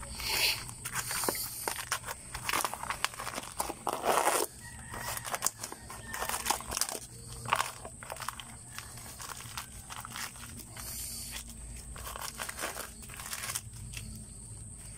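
Dry, brittle skin of a mature sponge gourd (patola, luffa) cracked and peeled off by hand from the fibrous sponge inside, crackling and crunching irregularly. The crackling is thickest over the first four seconds or so, then comes in sparser snaps and stops near the end.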